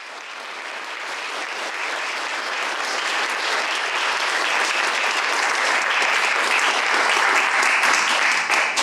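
Audience applauding, growing louder and then dying away quickly near the end.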